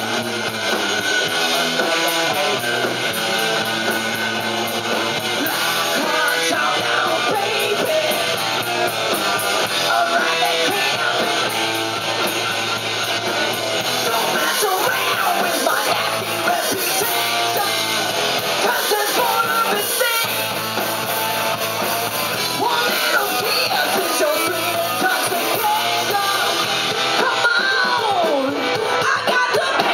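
Live rock band playing: electric guitars, bass and drum kit with a singer's voice over them, steady and loud throughout.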